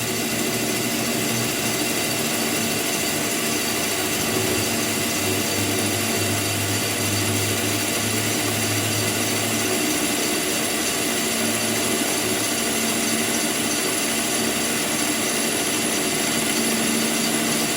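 A power tool running steadily without a break.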